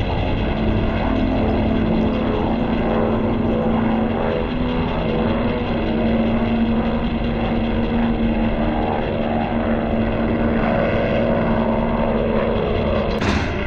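A steady mechanical drone over a low, even hum, broken near the end by a sudden sharp burst.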